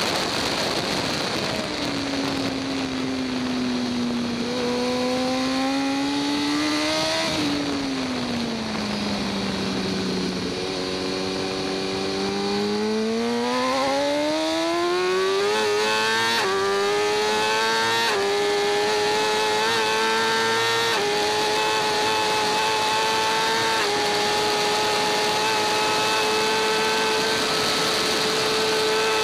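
2014 BMW S1000RR's inline-four engine heard onboard at racing speed: the revs fall away as the bike slows, then climb steeply as it accelerates, stepping through a few gear changes before holding a steady high note. A rush of air noise runs underneath throughout.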